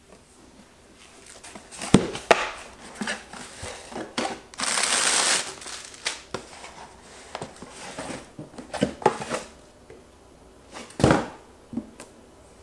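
Cardboard shipping box and boxed jigsaw puzzles being handled: a series of knocks and thuds as boxes are set down and moved, with rustling cardboard between. About a third of the way in there is a louder hissing rasp of cardboard lasting about a second.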